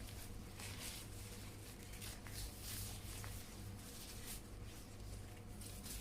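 Faint rustling and handling of a foldable shopping bag, in soft irregular swishes over a low steady hum.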